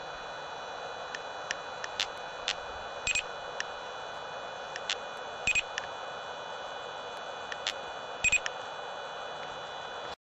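LTI UltraLyte 100 LR laser speed gun beeping three times, about two and a half seconds apart, once for each laser shot fired at the car. Each beep is short and comes in two quick parts, over a steady hiss with scattered faint clicks.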